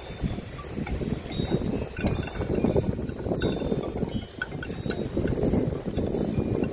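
Wind chimes ringing with many scattered, high tinkling tones over a low, uneven rumble that swells about when the chimes begin to sound louder.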